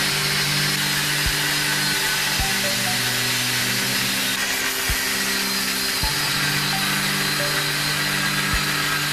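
Angle grinder with a cutoff disc cutting through a steel pipe, a steady hiss of the disc grinding metal. It plays under background music with sustained chords and a low beat.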